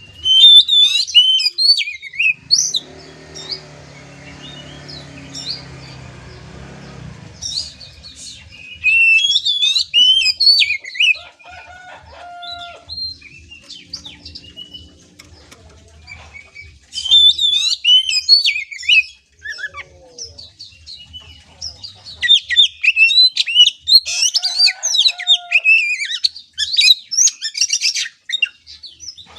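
Oriental magpie-robin (kacer) singing in bouts of rapid, varied whistles and harsh chattering, several seconds each with short pauses between, the kind of song used to fire up and train a young bird.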